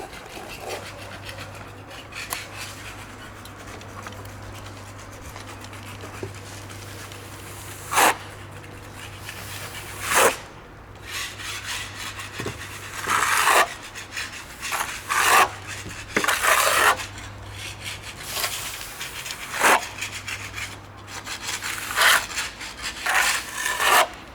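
Irregular scraping and rubbing strokes against a hard surface, about a dozen of them, some short and some drawn out for a second or so, over a steady low hum.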